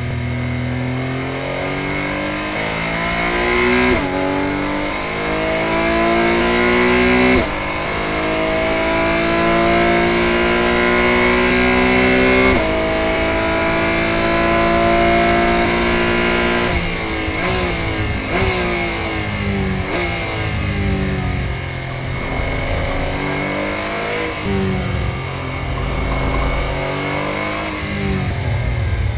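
Porsche 718 Cayman GT4 Clubsport's flat-six engine, heard from inside the cabin, pulling hard at full throttle. Its pitch climbs and drops sharply at three quick upshifts from second to fifth gear. After that, under braking, the pitch falls through a string of blipped downshifts back to second.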